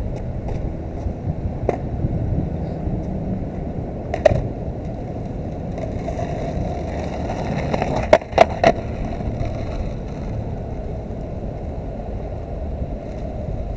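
Four-truck skateboard's wheels rolling over concrete paving with a steady low rumble. Sharp clacks come once a couple of seconds in and again about four seconds in, then three in quick succession near the eight-second mark.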